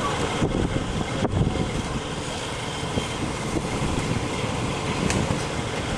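Strong hurricane wind blowing steadily, with an unsteady low rumble as it buffets the microphone.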